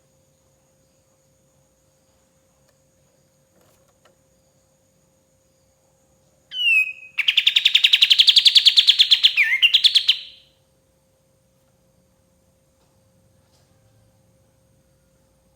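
Kapas tembak songbird giving a single burst of song about halfway through: a short falling note, then a fast trill of about eight notes a second for roughly three seconds, ending with a quick twist in pitch.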